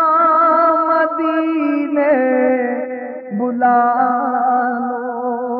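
A man's voice singing a naat, drawing out long held notes with a slight waver and stepping down in pitch about two seconds in.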